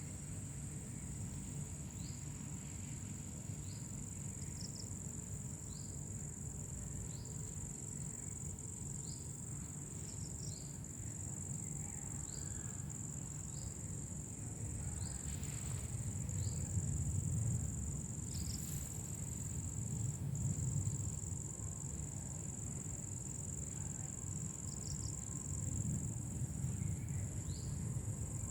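Garden ambience: a steady, high-pitched insect trill, with short, rising bird chirps every second or two over a steady low rumble.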